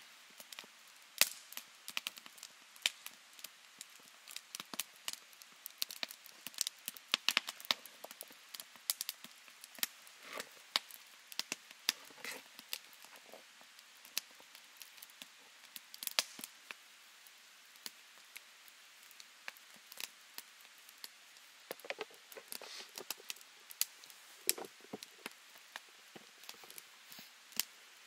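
Bread dough being mixed and kneaded by hand in a plastic food container: irregular sticky clicks and squishes, with occasional knocks of the container.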